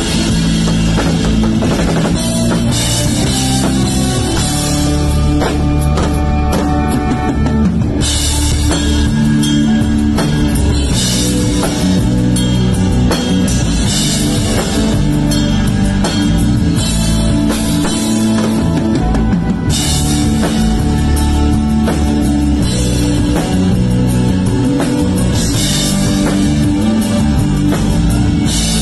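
Drum kit played close up with a live band in a pop-rock song: kick and snare under the bass and guitar, with stretches of cymbal wash every few seconds.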